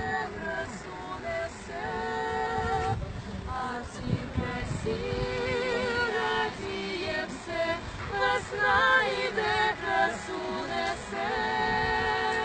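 Three young women singing a lullaby together in long held notes with vibrato, breaking briefly between phrases.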